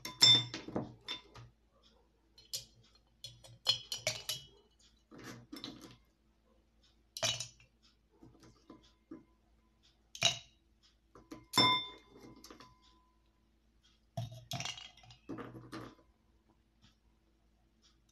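Ice cubes put one at a time into a glass mason-jar mug, each landing with a clink against the glass. About ten clinks come at uneven intervals, a few ringing briefly.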